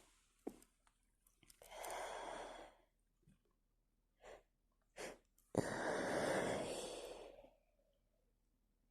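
A woman's breathing as a sneeze builds: a long breath about two seconds in and two short sniffs, then a sneeze bursting out past halfway and trailing off in a breathy exhale.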